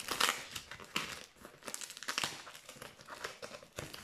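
Plastic packing tape being peeled off a cardboard box by hand, ripping away and crinkling in a string of short, irregular bursts.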